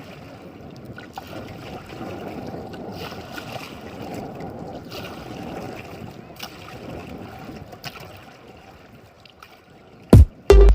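Steady low rush of sea water and wind around a small fishing boat, with a few faint knocks. Loud electronic music cuts in near the end.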